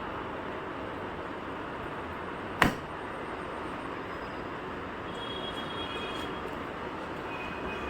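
A single sharp snap about two and a half seconds in, a paintless dent repair glue-pull tab letting go of the car panel, over a steady background hiss.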